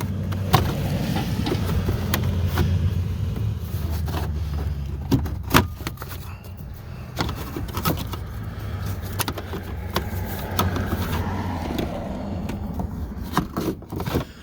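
Sharp clicks and rattles of plastic steering-column trim and a dangling key ring being worked by hand, over a steady low hum.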